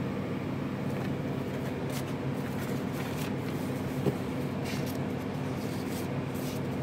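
Steady low mechanical hum. Light paper rustles and taps come and go over it as postcards are handled and set down on the desk.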